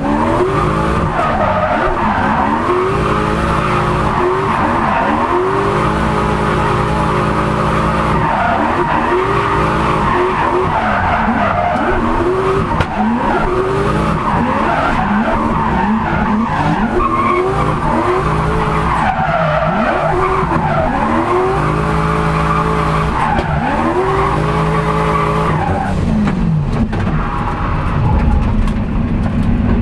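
Turbocharged Lexus 1UZ-FE V8 of a Nissan 200SX drift car, heard from inside the cabin, revving up and down again and again through a drift run, with the tyres squealing and skidding. In the last few seconds the revs settle into a steadier, lower drone.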